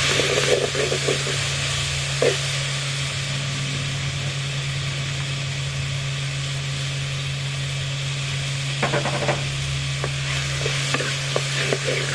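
Chopped tomatoes and whole small onions (shallots) sizzling in hot oil in a clay pot, with a wooden spatula scraping and knocking against the pot as they are stirred, most busily around nine seconds in. A steady low hum runs underneath.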